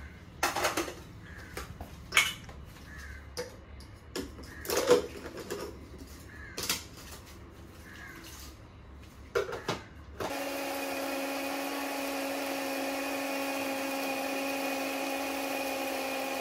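Scattered knocks and clinks of glass jars being handled on the counter, then about ten seconds in an electric blender switches on and runs at a steady, even pitch, blending the spice marinade into a paste.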